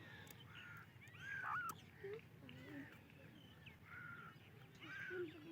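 Female francolin (teetar) calling in a string of short, arched notes, one after another about every half second, over a faint steady background hum.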